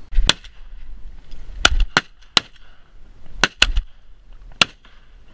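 A volley of seven shotgun shots from several hunters firing at incoming ducks, in irregular groups: one, then three quickly, then two close together, then one more.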